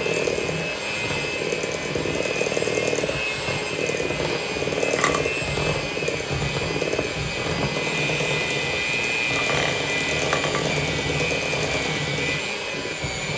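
Electric hand mixer running steadily, its beaters whirring through cake batter in a glass bowl as flour is mixed in, with a few sharp clicks along the way.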